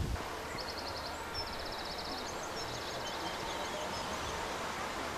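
Rural outdoor ambience: a steady wash of background noise with small birds chirping in several short, rapid trills during the first few seconds.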